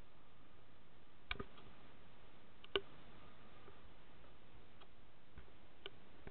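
A few sharp, isolated clicks over a steady low hiss, the loudest about three seconds in.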